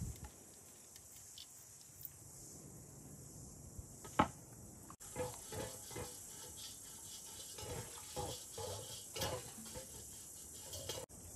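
Cooking utensils handled during food preparation: one sharp click about four seconds in, then a string of irregular light knocks and clinks, over a steady faint hiss.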